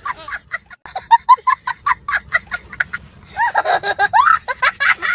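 A young child laughing hard: a quick string of short, high giggles, then longer rising and falling squeals of laughter.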